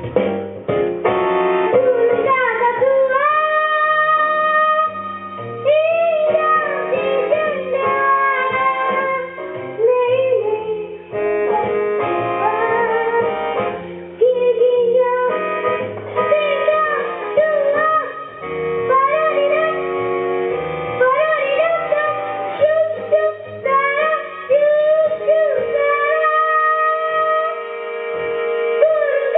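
A child singing a medley of Indonesian children's songs over instrumental backing.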